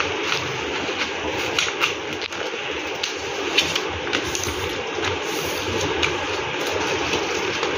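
A sheet of white paper being folded and creased by hand, giving scattered light clicks and rustles, over a steady rumbling background noise.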